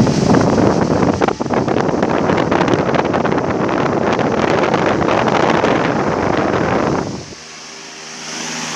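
Dômina 50 cm desk fan, fitted with a Loren-Sid Sprint Turbo blade, running with its air stream buffeting the microphone in a loud, rough rush. About seven seconds in the rush drops away, leaving the fan's steady motor hum.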